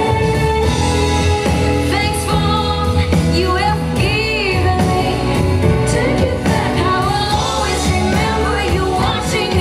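Loud pop music with singing over a steady bass beat, played as a dance routine's soundtrack.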